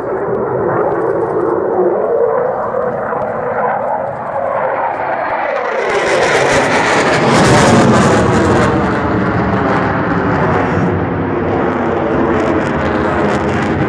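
F-16 fighter jet flying over, its engine noise swelling to a loud peak a little past halfway, then going on as a steady, deep rumble as it moves away.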